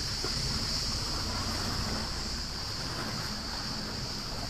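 Steady wind and water noise with a constant high-pitched hiss and a low rumble, no distinct events.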